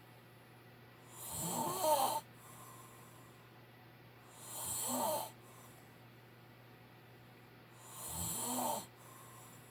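A man snoring loud: three rattling snores, each about a second long, coming about every three seconds.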